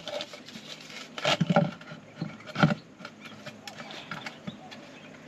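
Scattered clicks and knocks of hands handling hardware and parts, a few louder knocks in the first half.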